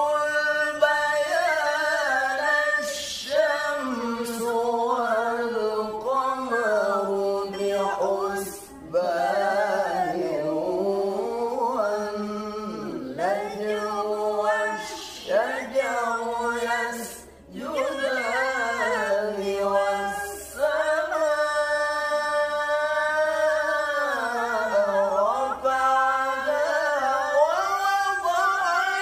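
Unaccompanied Qur'anic recitation (tilawah) sung in long, ornamented melismatic phrases in maqam bayati, passed between reciters in call-and-response (jawabul jawab). Brief breath breaks separate the phrases several times.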